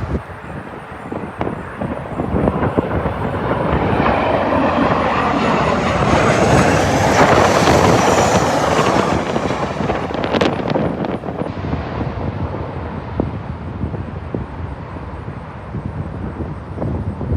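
Southwest Airlines Boeing 737 jet passing overhead on its landing approach, its engine noise building to a peak about seven to nine seconds in and then fading. Strong wind buffets the microphone throughout.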